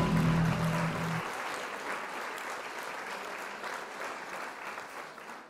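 Audience applause, fading steadily away. A low held tone underneath stops about a second in.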